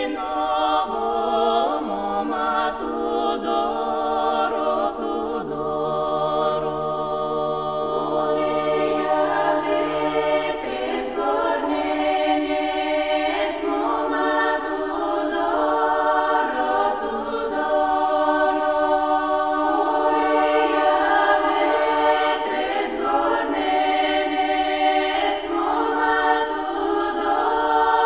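Background music: a choir singing slow a cappella music in long, held chords.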